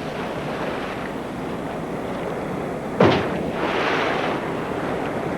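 A splash about three seconds in, followed by a short hiss of spray, over a steady rush of sea water: animals porpoising, leaping clear of the surface and plunging back in.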